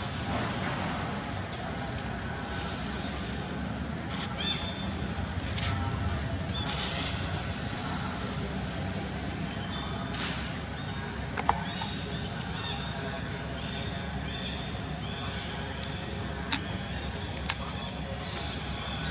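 Steady high-pitched insect drone from a forest chorus, with a few sharp clicks: one near the middle and two close together near the end.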